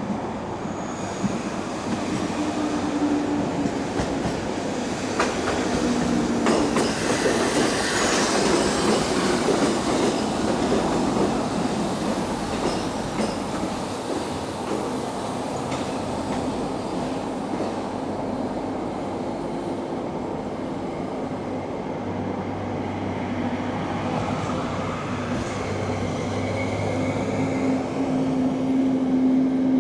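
Freight train hauled by an EF65 electric locomotive running past on the rails: a steady rolling noise of wheels on track, with a few clicks about five to seven seconds in and thin squealing tones that come and go.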